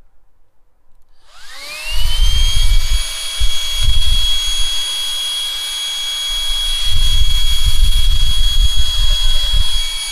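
A small high-speed electric motor spins up with a rising whine about a second in, then holds a steady high-pitched whine. Irregular low rumbling comes and goes underneath.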